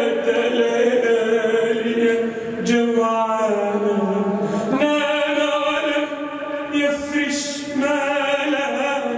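Men's voices singing an Arabic nasheed a cappella into microphones, drawing out long held notes that change pitch every couple of seconds, with no instruments.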